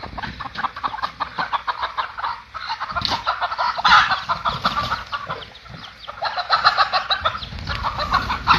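Chickens clucking rapidly, many short calls crowding over one another, with a brief lull about halfway through.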